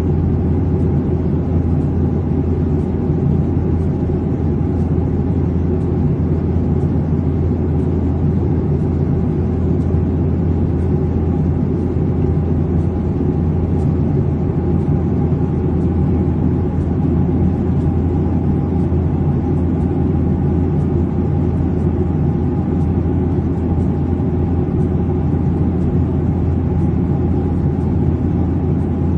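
Steady drone of an airliner in flight as heard inside the passenger cabin: engine and airflow noise with a deep hum and a faint steady higher tone, unchanging throughout.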